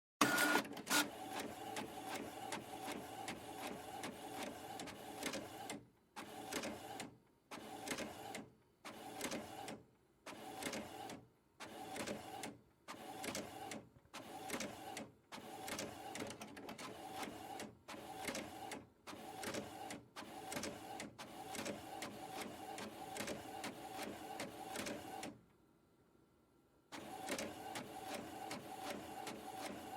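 Printer running and printing: a steady whirring with a fixed tone, chopped into short passes with brief pauses between them. It stops for a second or two about 25 seconds in, then starts again.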